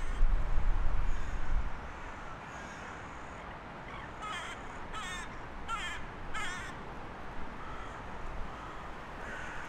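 Hooded crow cawing four times in an even series, each call harsh, about 0.7 s apart. Before the calls there is a low rumble in the first two seconds.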